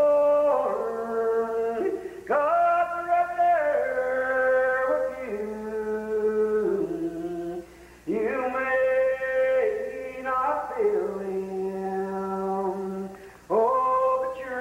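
A man singing a slow gospel hymn unaccompanied, holding long drawn-out notes that slide between pitches, with short breaks for breath about eight and thirteen and a half seconds in.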